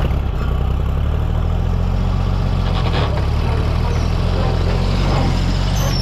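Tractor engine running steadily, driving an Oliver 520 small square baler that is turning over empty, its mechanism running with it.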